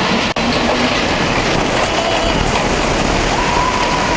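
Intamin LIM launched inverted coaster train speeding out of its launch tunnel: loud, steady rush of wind and rattling wheel noise on the track. Riders start screaming near the end.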